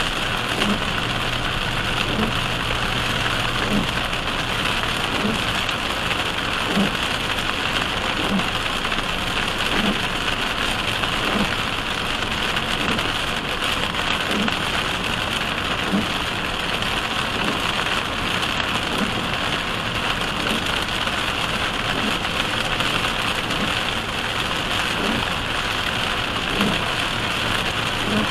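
Heavy rain pelting the windshield and roof of a car at highway speed, heard from inside the cabin as a steady dense hiss. The windshield wipers thump at the end of each sweep, about every second and a half.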